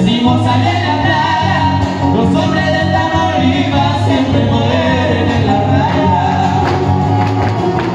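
Huapango music with singing over strummed and plucked strings, played for the dance. Dancers' zapateado footwork taps on the stage come through near the end.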